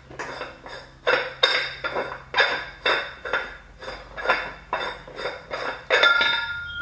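Metal valve-protection cap on a nitrogen cylinder being unscrewed by hand, its threads and rim clinking metal on metal about twice a second, with a brief ringing near the end as it comes free.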